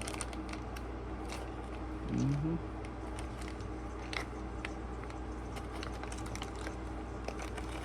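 Scattered light clicks and small handling sounds of loose amp knobs and their packaging being gathered up, over a steady low electrical hum.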